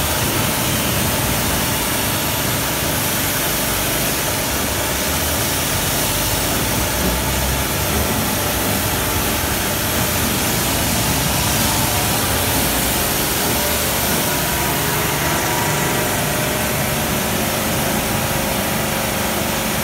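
High-pressure washer running: a steady hiss of the water jet spraying onto a scooter, over the hum of the washer's pump motor.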